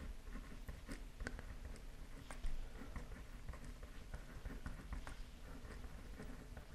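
Pen writing by hand on a paper card: a run of small, irregular scratches and taps from the pen strokes.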